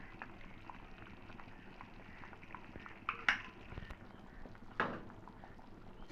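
Thick vegetable pulusu simmering in an aluminium pot, a steady patter of small bubbling pops. Two louder knocks against the pot come about three seconds in and near five seconds.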